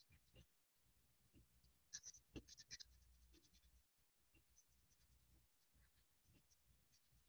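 Faint scratching of a felt-tip marker colouring on paper in quick short strokes, busiest about two seconds in.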